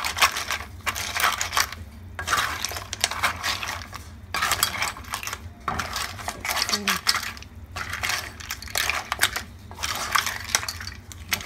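Clams in their shells clattering against the side of a metal pot as a wooden spatula stirs them through sweet basil. The rattling comes in repeated spells with short pauses between stirs.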